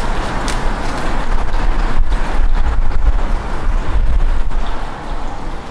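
Wind buffeting the microphone: a loud, uneven low rumble that swells and dips in gusts.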